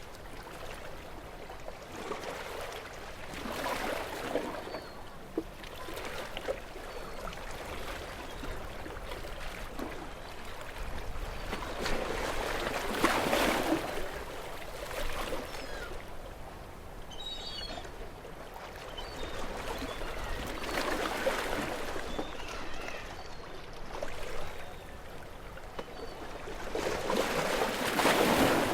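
Gentle waves washing onto a beach. Each wave swells up and falls away, about every eight seconds.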